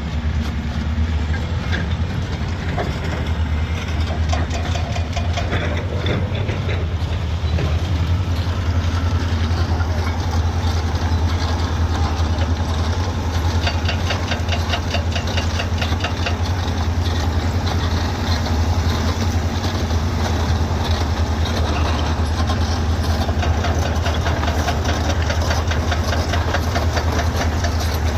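Caterpillar D7E bulldozer's diesel engine running under work with a steady low drone that grows a little louder about eight seconds in, with metallic clatter from the crawler tracks.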